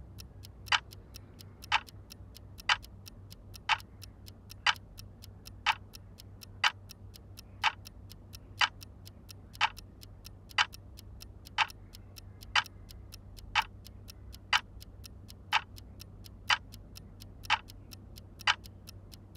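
Clock ticking steadily, one sharp tick about every second, over a faint low hum.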